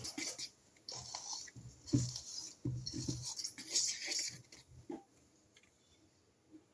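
Cake batter being scraped out of a mixing bowl into a baking tin: a few seconds of irregular scraping with a few soft knocks against the bowl.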